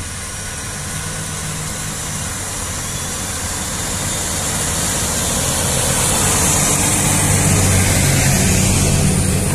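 John Deere 8310R tractor's diesel engine working under load as it pulls a reversible plough through the soil, a steady low drone that grows louder as the tractor approaches and passes close, loudest about eight seconds in.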